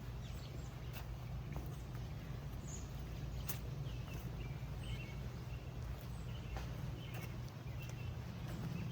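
Footsteps on a garden path, irregular sharp steps over a steady low outdoor rumble, with a few short, faint high chirps in the middle.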